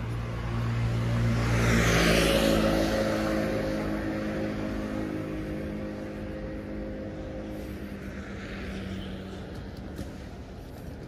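A motor vehicle passes close by on the street: tyre hiss and engine hum swell to a peak about two seconds in, then fade as the engine tone drops slightly. A second vehicle passes more faintly near the end.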